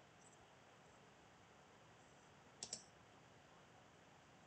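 Two quick computer clicks close together, about two and a half seconds in, over a faint steady hiss; otherwise near silence.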